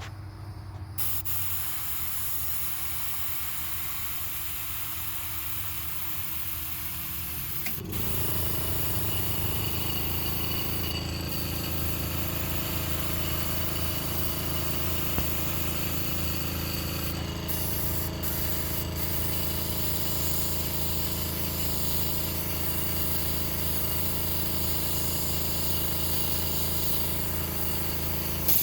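Airbrush compressor motor running steadily under the hiss of sprayed air, growing louder with a deeper hum about eight seconds in.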